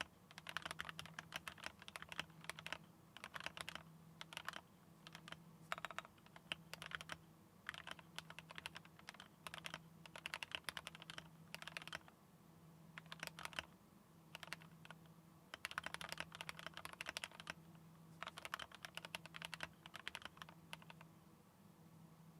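Typing in runs on a GMMK Pro mechanical keyboard with Tealios linear switches: quick keystroke clacks in bursts of a second or two, with short pauses between them. The typing stops near the end.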